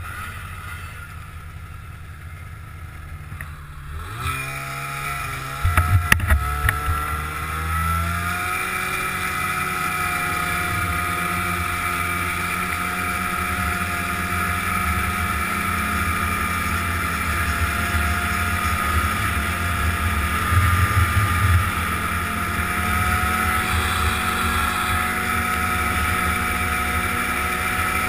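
Arctic Cat snowmobile engine, quieter for the first few seconds, then revving and pulling away about four seconds in, its pitch rising before it settles into a steady run at speed. There are a few sharp knocks around six seconds in, and wind on the microphone while it rides.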